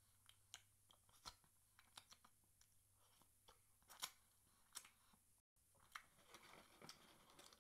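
Faint, scattered wet clicks and smacks of a mouth licking gravy off fingers and eating fried chicken.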